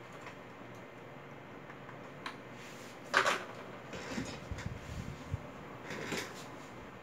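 Handling noises from working on a rubber-tyred RC monster-truck wheel and its hub on a plastic table. A sharp clack comes about three seconds in, then low bumps and rubbing, and another lighter clack near the end.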